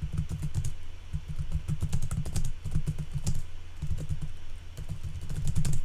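Typing on a computer keyboard: quick, uneven runs of keystroke clicks with short pauses between words.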